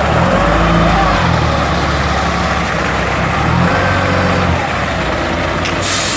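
Heavy truck engine running steadily at a concrete pour, with a short hiss about six seconds in.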